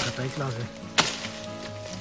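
Two sharp chopping strikes about a second apart as a wild banana plant's stem is cut through, over background music.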